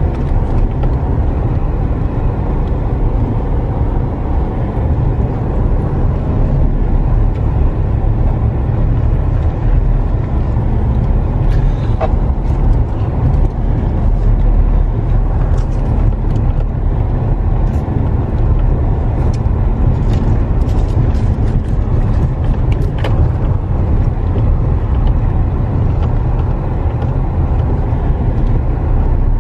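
Steady low rumble of a vehicle's engine and tyres while driving, heard from inside the cab, with a few faint clicks and rattles about halfway through.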